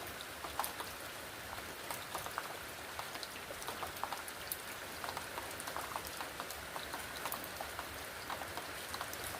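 Steady rain falling, with many separate drops hitting a surface as quick clicks over an even hiss.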